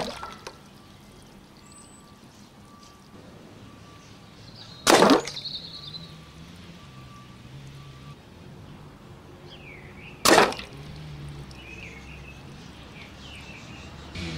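Air rifle firing pellets at water-filled food tins: two sharp shots about five seconds apart, and a quieter third right at the end.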